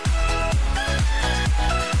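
Background electronic dance music with a steady beat, about two beats a second.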